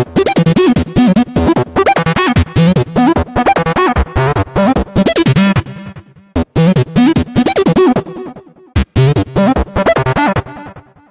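Outro music with a fast, choppy beat. It breaks off briefly twice, around six and eight seconds in, and stops about ten and a half seconds in.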